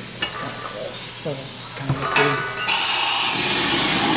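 Liquid nitrogen hissing loudly and steadily as it sprays from the NitroCream G6 machine's fixed dispenser into the mixing bowl, starting abruptly a little past halfway through; before it, a couple of light clicks.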